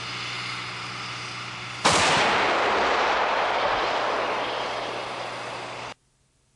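AMOS twin-barrel 120 mm mortar turret firing a round about two seconds in: a sharp blast followed by a long echoing rumble that fades over about four seconds, over the vehicle's steady engine hum. The sound cuts off suddenly near the end.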